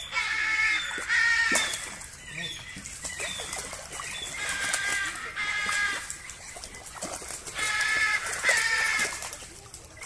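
Banded penguins braying: harsh, bleat-like calls in three pairs, two calls in quick succession each time.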